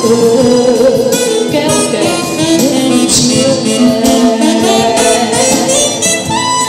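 A woman singing into a handheld microphone over instrumental accompaniment, holding long notes with vibrato.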